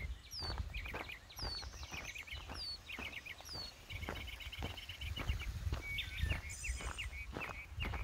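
Songbirds singing: one repeats a short, high, falling whistle over and over among chirps, with a rapid trill about halfway through. Under the birdsong, footsteps crunch steadily on a gravel fire road, about two steps a second.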